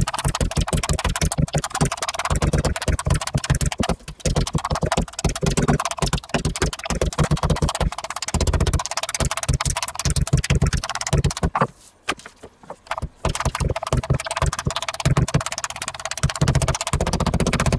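Meat mallet pounding a slab of pork neck against a wooden cutting board in rapid strokes, several a second, to flatten and tenderise it, with a short break about two-thirds of the way through.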